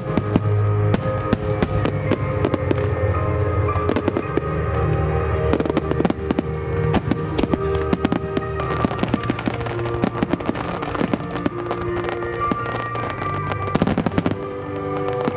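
Fireworks from a starmine barrage: many sharp shell bursts and crackles in quick succession, densest near the end, over music played with the display.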